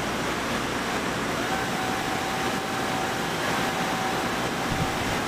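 Handheld orbital sander running on a wooden cabinet part, its steady whine coming in about a second and a half in, over a constant background rush of shop machinery.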